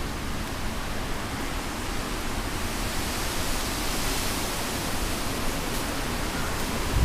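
Hurricane-force wind rushing through trees, a steady hiss that swells a little around the middle.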